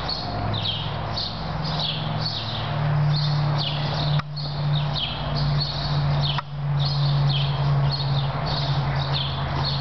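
Small birds chirping over and over, a couple of short high chirps a second, over a steady low hum.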